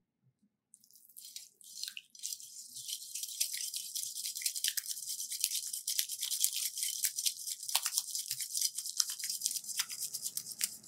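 Wire balloon whisk beating eggs into a thick mixture in a ceramic mixing bowl: a fast, continuous run of light scraping and clicking of the wires against the bowl, starting about a second in.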